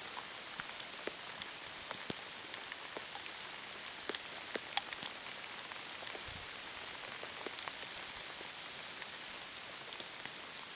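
Light rain falling: a steady hiss with scattered single drops ticking close by at irregular moments.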